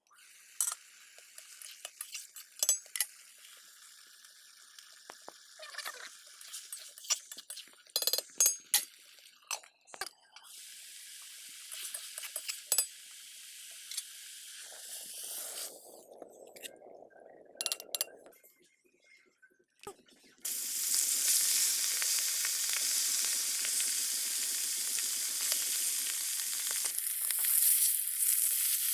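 Food frying in hot oil in a kadai: light clinks and scrapes with a soft sizzle at first, then a loud, steady sizzle that starts suddenly about two-thirds of the way through.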